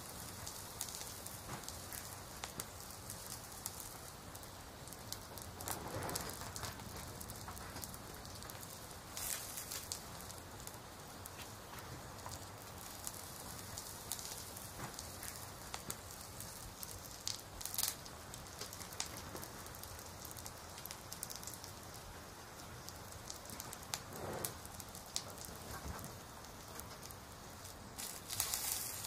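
Steady hissing ambience full of small crackles and ticks, with two soft swells about six seconds in and again near the end of the third quarter.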